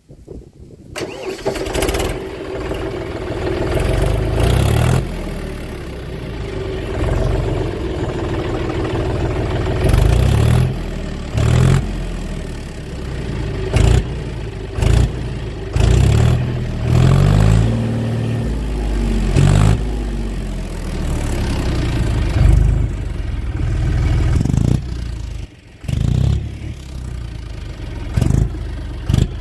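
John Deere 5050D tractor's three-cylinder diesel engine, with the silencer and exhaust pipe removed, starting about a second in. It then runs loud and open-piped, revved up in short bursts again and again.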